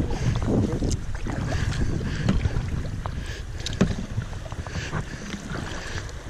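Kayak paddling on a flowing river: a carbon-shaft paddle dipping and splashing with a few sharper splashes, water washing along the hull, and wind buffeting the microphone.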